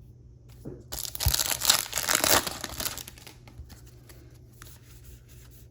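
A trading card pack wrapper being torn open and crinkled: a loud crackling rip lasting about two seconds, starting a second in, followed by faint rustles of cards being handled.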